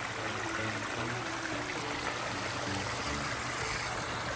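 Water running over the boulder waterfalls of a pondless stream: a steady, even rush of splashing and trickling.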